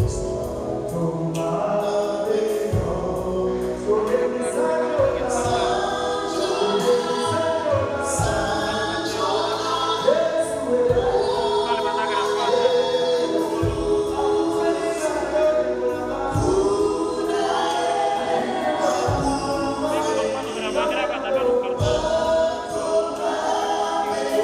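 Amplified gospel choir singing a worship song, a lead singer's voice on a microphone over the choir, with a regular low beat underneath.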